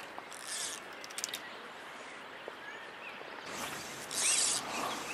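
Fly reel's click-and-pawl ratchet buzzing in short bursts as line is pulled off it: a short burst about half a second in and a louder one about four seconds in.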